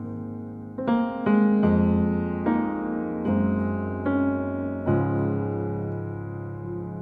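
Background music: soft piano or electric-piano chords, a new chord struck about every second.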